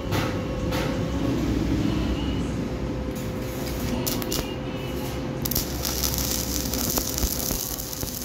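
Stick (arc) welder starting a weld on a steel angle bracket: a few short taps and scratches as the electrode is struck, then, a little past halfway, the steady crackling hiss of the arc, over a constant hum.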